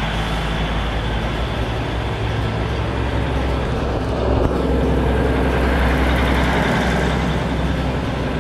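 Heavy diesel engine running steadily, a low rumble that grows a little louder about halfway through.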